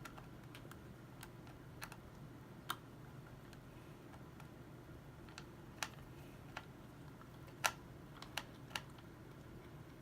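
Small screwdriver and screw clicking and tapping against a laptop's plastic and metal as the SSD caddy is screwed in place: about ten short, sharp, irregular clicks, the loudest about three-quarters of the way through.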